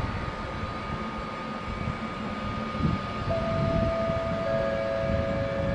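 Electric locomotive rolling slowly past: a low uneven rumble under a thin, steady high whine. Two lower steady tones join in a little past halfway.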